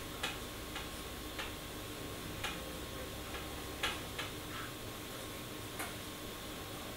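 Whiteboard marker writing on a whiteboard: a few light, irregularly spaced taps and short scratches as the tip meets the board for each letter stroke.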